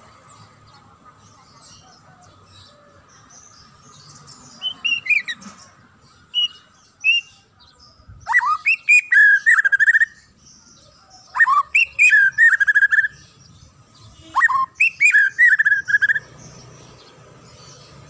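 White-rumped shama singing: loud, clear whistled phrases, each opening with a rising sweep and breaking into rapid warbling notes, given three times in the second half after a few softer short notes.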